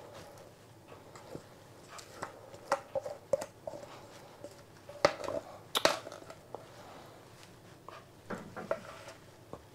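Thick cake batter being poured and scraped out of a metal mixing bowl into a parchment-lined cake tin: soft wet plops and scattered clicks and scrapes against the metal, the loudest knocks about five to six seconds in.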